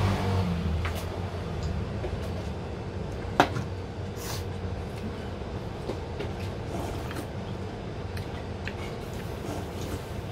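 Broth being drunk straight from a metal ramen pot: a sharp clink about three seconds in, a brief sip, and a few light knocks, over a steady low hum.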